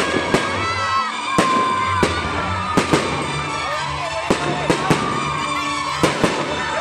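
Aerial fireworks shells bursting overhead: a string of sharp bangs, irregularly spaced about one or two a second, over loud background music.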